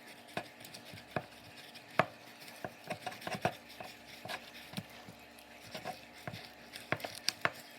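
Fillet knife cutting a largemouth bass fillet away from its skin on a board, giving irregular sharp taps and knocks with soft scraping between them. The loudest knock comes about two seconds in.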